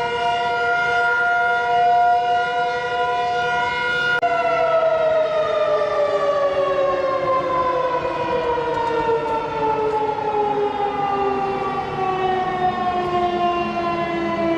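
Siren sound of an Emergency Alert System alarm: a steady chord of two tones that, about four seconds in, begins sliding slowly down in pitch like a siren winding down.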